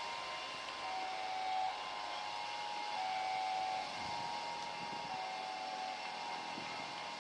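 A steady hiss of engine noise with a two-pitch tone over it: a higher note gives way to a lower note for just under a second, about every two seconds.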